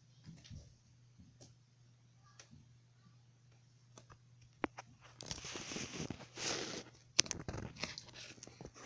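Handling noise: scattered faint clicks, then rustling and scraping about five seconds in, with a sharp click around seven seconds, over a faint steady hum.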